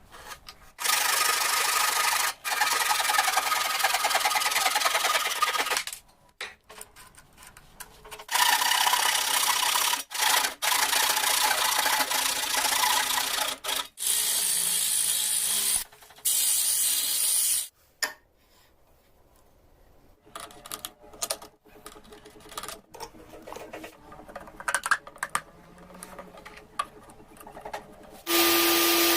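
Wood being worked with an abrasive tool: several long, loud stretches of rasping noise, broken by pauses filled with scattered knocks and clicks, and a steady hum near the end.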